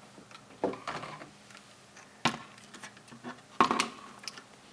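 3D-printed plastic suspension parts and a metal-bodied shock absorber clicking and knocking together as they are handled and fitted: three sharper knocks about a second and a half apart, the loudest near the end, with faint small ticks between.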